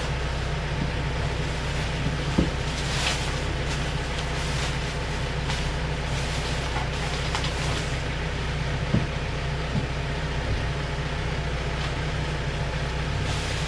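Steady low mechanical rumble with a few light knocks, one about two and a half seconds in and another about nine seconds in.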